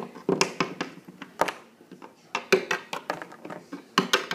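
Small hard plastic toy figures tapping and knocking on a hard tabletop as they are picked up and hopped along by hand, in a string of irregular taps.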